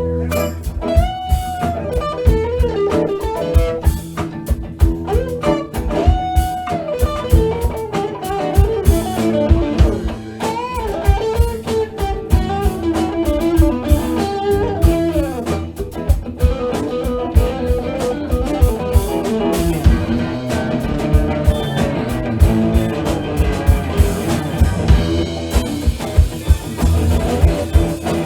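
Blues band playing live: a guitar lead with bent, sliding notes over a steady drum kit beat, with no vocals.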